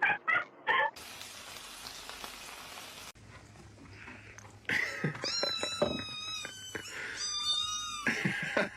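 A cat meowing: two drawn-out, high-pitched meows about five and seven seconds in, with short clicks and knocks around them.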